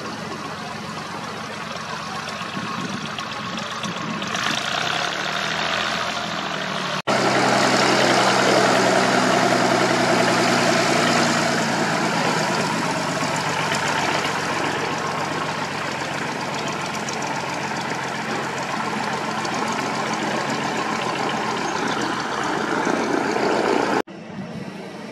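An engine running steadily, with a noisy rush over its hum. It gets louder after an abrupt cut about seven seconds in, and cuts off abruptly again near the end.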